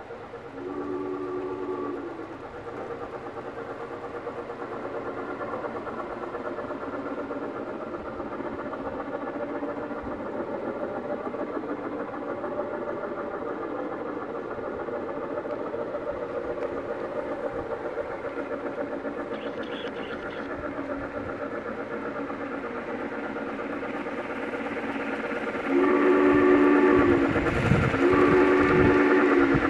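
Sound system of an MTH 1 gauge Challenger steam locomotive model running with a train: steady chuffing and running noise, a short whistle toot about a second in, and two long whistle blasts near the end as the train comes close and gets louder.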